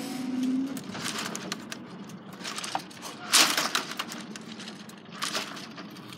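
Level crossing barrier mechanism humming steadily, stopping just under a second in as the raised boom reaches the top. Then come a few short rustling knocks, the loudest about three and a half seconds in.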